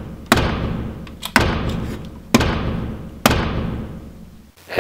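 Four heavy booming footstep thuds, about one a second, each ringing out slowly before the next: giant-robot stomps as the Baymax action figure is walked across the table.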